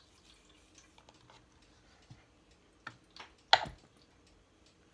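Faint scattered ticks of salt being poured through a funnel into a glass bottle, then a couple of small clicks and one sharp knock about three and a half seconds in.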